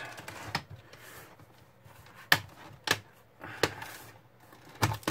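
A handful of sharp clicks and knocks at irregular spacing, the loudest about two seconds in, as a small LED circuit board is worked loose from an LCD monitor's sheet-metal chassis.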